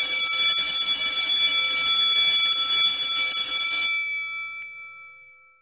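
Electric school bell ringing steadily for about four seconds, then stopping, its gong ringing on and fading away.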